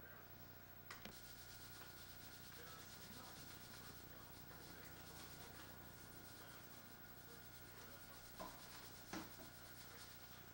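Near silence: steady hiss and room tone, with a few faint short knocks, one about a second in and two close together near the end.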